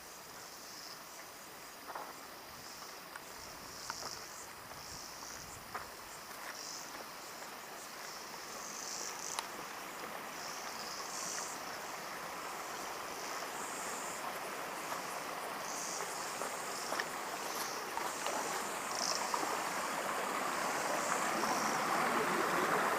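Rushing water of a river or waterfall, a steady hiss growing gradually louder, with insects chirping in short high bursts throughout.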